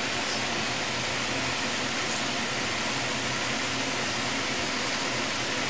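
Steady sizzling hiss of diced marrow frying in oil in a pan on a gas hob, with a faint low hum beneath.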